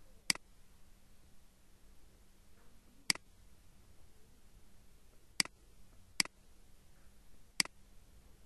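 Computer mouse button clicking five times: single sharp clicks a few seconds apart, with two closer together just past the middle.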